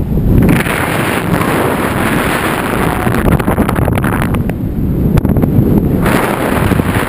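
Wind buffeting the microphone of a camera carried by a paraglider in flight: a steady low rumble that swells into louder hissing gusts for a few seconds, twice, with scattered crackles.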